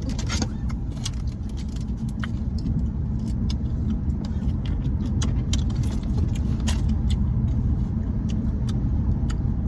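Car cabin road noise while driving: a steady low rumble with scattered light clicks and rattles.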